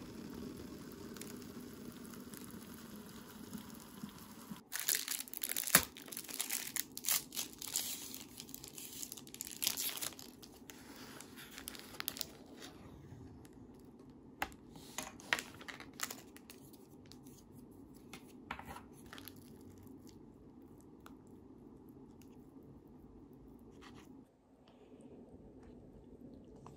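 Food packaging being handled: a run of crinkling and tearing rustles for about eight seconds, then a few scattered clicks and taps over a faint steady room hum.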